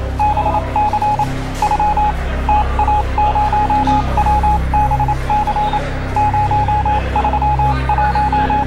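Music soundtrack: rapid short electronic beeps at one pitch, in irregular groups like phone keypad tones or Morse code, over a steady low bass line.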